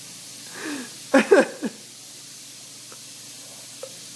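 A tap running at the sink as a steady hiss. About a second in, a man lets out short pained groans and gasps from a habanero's burn.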